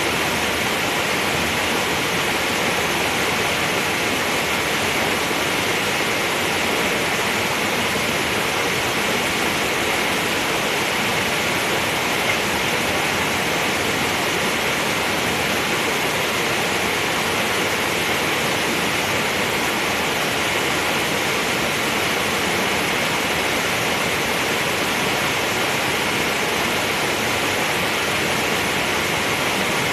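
Steady rushing noise, even and unbroken, with a faint tick about twelve seconds in.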